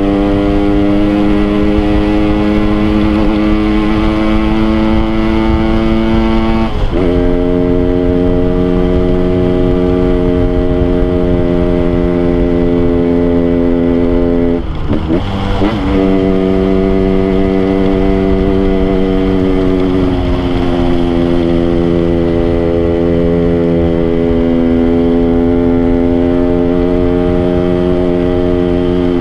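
Yamaha RX-King's two-stroke single-cylinder engine running under way at steady revs. Its pitch steps down sharply about seven seconds in, then briefly dips and comes back up about fifteen seconds in.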